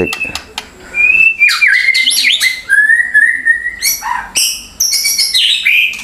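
White-rumped shama singing: a varied run of clear held whistles, sliding notes and quick high chirps.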